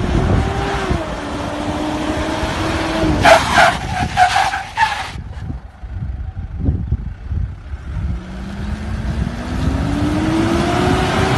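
SUV engine running under throttle, then several short bursts of tyre squeal about three to five seconds in as it is thrown around on pavement. After a quieter stretch with a few knocks, the engine revs up again with a rising pitch near the end.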